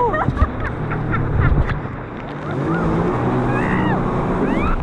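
Yamaha WaveRunner jet ski running at speed, a steady engine drone under the hiss of water spray and rushing wash. A few short sliding tones come in near the end.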